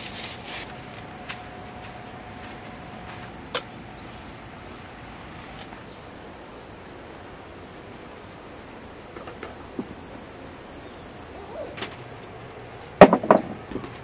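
Summer insects buzzing steadily in a high, even drone. About a second before the end, a short clatter of hard knocks as dishes and a wire dish rack are handled in a canvas storage basket.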